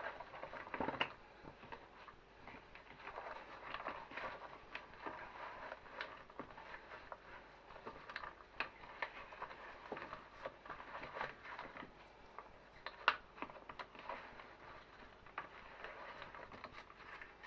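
Oil-coated raw potato slices being tossed and turned by hand in a plastic bowl: soft, irregular wet slapping and patter with small sharp clicks of slices against each other and the bowl, one a little louder about thirteen seconds in.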